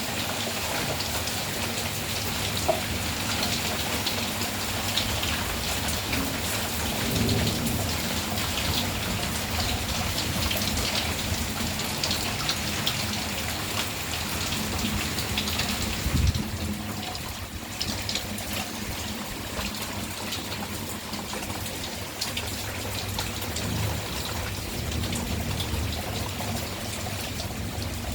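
Heavy rain falling steadily on surfaces, a dense pattering of drops. About sixteen seconds in there is a short low thump, and after it the rain is a little quieter.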